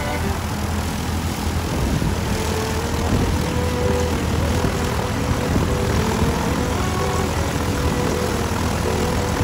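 Steady aircraft engine noise, a dense low rumble at an even level, with faint music notes over it.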